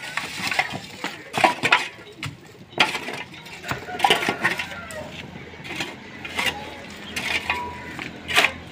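Metal shovel scraping over packed dirt and chinking against broken-brick rubble in irregular strokes, with several sharper scrapes and knocks.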